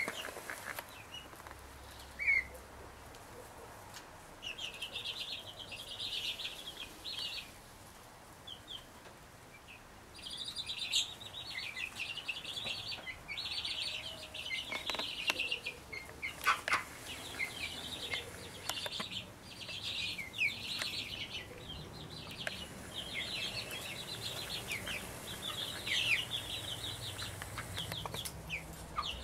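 Young Brahma chicks peeping: many high-pitched cheeps coming in bouts, with a quieter spell about a third of the way through and a few short knocks.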